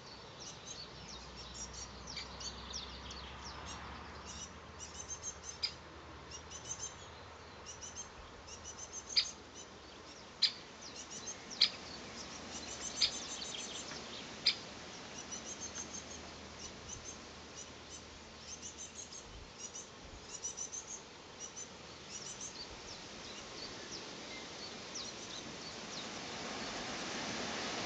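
Small songbirds chirping over and over in quick, high notes, with six sharp, loud clicks between about five and fifteen seconds in.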